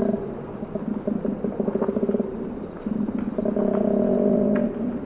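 Koala bellowing: a deep, guttural call made of rapid snore-like pulses, with a smoother, more tonal stretch between about three and a half and four and a half seconds. It is the call males typically make in mating season to announce themselves and claim territory.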